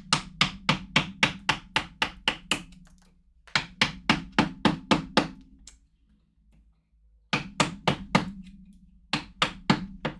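Mallet striking a carving gouge or chisel into wood in quick runs of blows, about four to five a second, in four bursts with short pauses between, a low ring sounding under each run.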